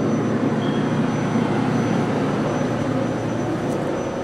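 Steady mechanical hum and whir of running machinery, with a faint thin high whine on top.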